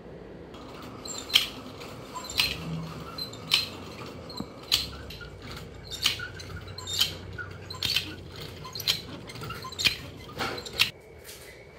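Mechanism of a hand-cranked wooden automaton clicking and clacking as it turns, about one to two clicks a second, over a faint low rumble.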